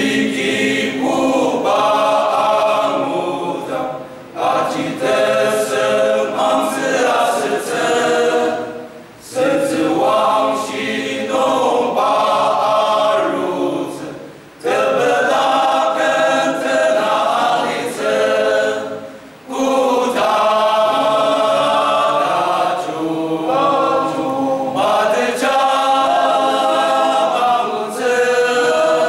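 Male voice choir singing a church song a cappella, in phrases with short pauses about every five seconds.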